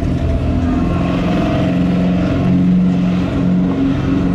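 A car engine running at a steady idle close by, loud and even.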